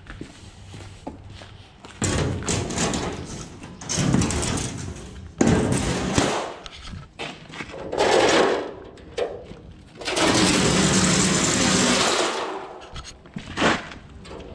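Large sheet-metal road sign being handled and set down on a concrete floor, rattling and knocking, then dragged across the concrete with a steady scrape for a couple of seconds.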